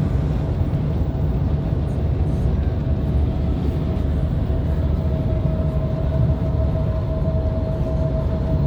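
Kenworth W900 semi-truck running, a steady, loud low engine and tyre drone with a thin steady whine above it.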